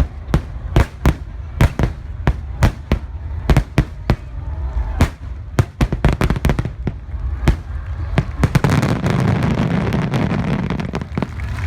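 A rapid volley of aerial fireworks bursts, sharp cracks several times a second, giving way near the end to a dense continuous rush of sound.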